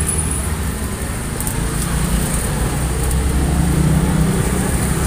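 Steady roadside traffic rumble, with the low hum of running motor vehicles.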